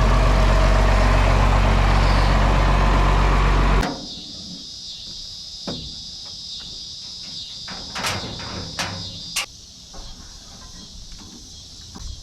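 John Deere tractor engine idling steadily, stopping abruptly a little under four seconds in. Then crickets chirping steadily, with a few scattered clicks and knocks.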